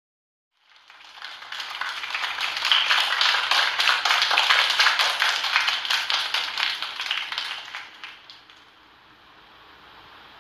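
Applause from many people clapping, swelling in about a second in and dying away after about eight seconds.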